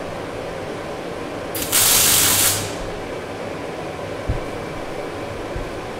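MIG welder tacking a steel-tube frame: one burst of welding-arc noise about two seconds in, lasting about a second, over the steady hum of the welding machine. A single small knock follows a couple of seconds later.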